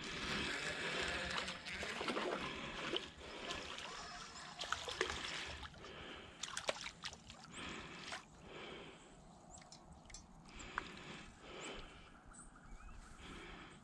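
Water splashing and sloshing as a hooked panfish is reeled across the pond surface, louder for the first few seconds and then quieter, with a few sharp clicks.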